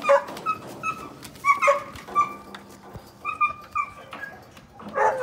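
Kennelled dogs barking and yipping: about a dozen short, high barks in quick, uneven succession.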